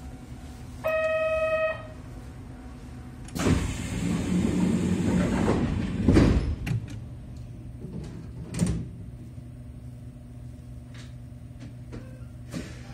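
Kintetsu 6432-series train standing at a station, doors working: a short, steady pitched tone about a second in, then a rush of hissing air lasting a couple of seconds, followed by a few knocks.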